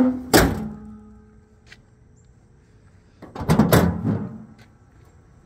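A pickup's steel tailgate being worked: a sharp metal clank that rings on for a second or so, then a second cluster of clanks about three and a half seconds in.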